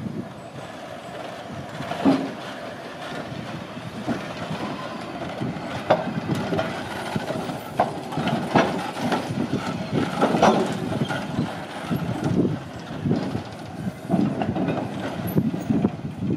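Leeds Horsfield tram no. 180 rolling slowly along street track. Its steel wheels clatter and knock irregularly over rail joints and pointwork.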